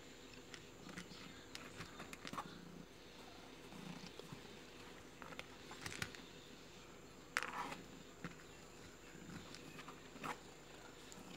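Mother cat purring faintly while her newborn kittens nurse, with a few soft clicks and knocks scattered through it, the loudest about seven seconds in.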